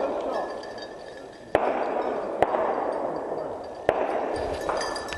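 Three shotgun shots fired at a flushed pheasant, the second close after the first and the third about a second and a half later, each report echoing off the surrounding woods.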